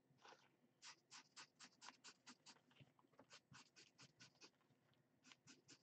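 Faint, quick strokes of a washable felt-tip marker drawing lines on a paper coffee filter, about five strokes a second, in three runs with short pauses between.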